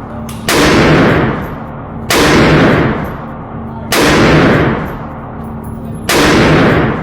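AR-15 pistol with a muzzle brake firing four single shots, spaced about two seconds apart. Each shot rings on for about a second in an indoor range.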